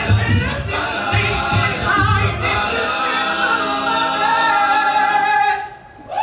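Men's a cappella group singing in close harmony over a pulsing low bass line, then holding a chord for a few seconds that cuts off together near the end.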